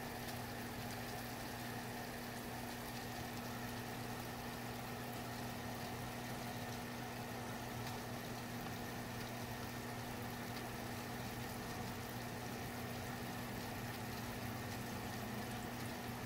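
Steady hum of the fish tank's equipment, with water bubbling and running through the tank.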